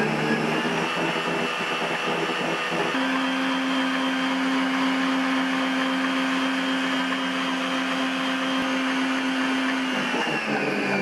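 Mito stand mixer motor running at speed 10 with a steady whine, its beater whipping thick cake batter of eggs, sugar, palm sugar and flour in a covered steel bowl. Near the end the pitch starts to fall as the mixer is turned down.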